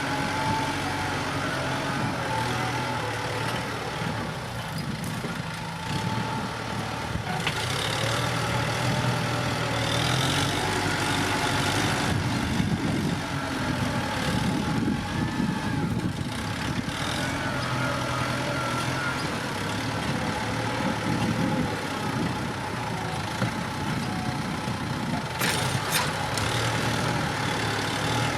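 Kubota M7040 tractor's diesel engine running under varying load, with a couple of sharp knocks near the end.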